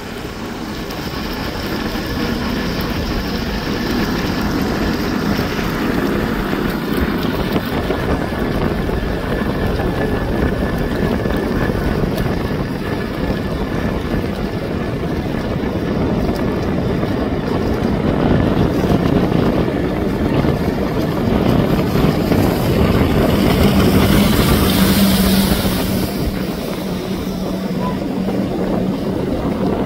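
Jet ski engine running under way over the water, with rushing wind and water noise. The sound grows louder for a few seconds about three quarters of the way through, with a steadier engine tone.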